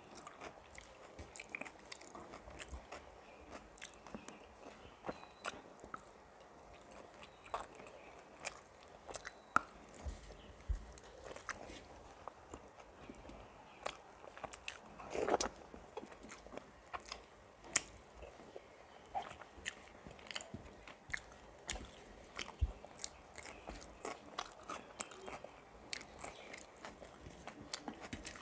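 Close-miked eating sounds from a meal of rice, fried vegetables and chicken liver curry: irregular chewing with many small wet clicks and crunches, and one louder, slightly longer mouth sound about halfway through.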